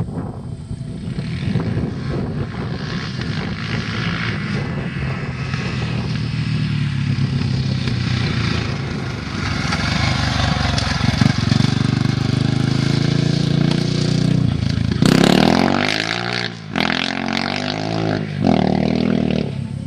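Honda XR600 single-cylinder four-stroke dirt bike engine, growing louder as the bike comes close, then revved hard with the pitch rising and falling. The engine note drops away briefly twice near the end.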